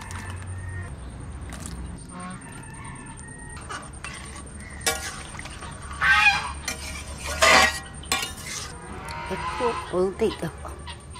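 Domestic fowl honking loudly, two strong calls about six and seven and a half seconds in, with more calls near the end. A few light knocks of a metal spatula in the cooking pan come before them.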